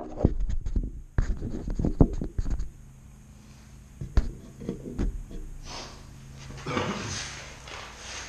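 Light clicks and knocks of hands handling the motorcycle's drive chain and a measuring tool while checking chain slack, densest in the first couple of seconds. After that come a few isolated clicks and two soft rushing sounds near the end.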